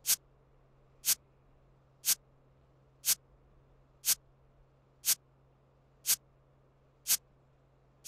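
Quiz countdown timer sound effect ticking sharply about once a second.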